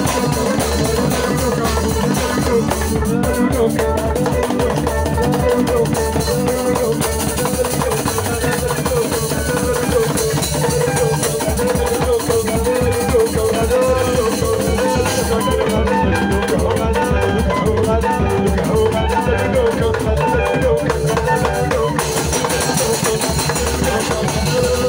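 Band music with guitar and drum kit playing steadily without a break.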